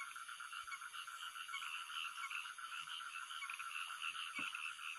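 Dense night chorus of frogs calling continuously, many overlapping pulsing calls.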